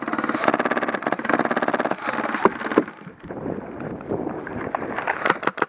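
Airsoft gun firing on full auto in rapid bursts, a fast buzzing rattle that stops about three seconds in, followed by scattered sharp clicks.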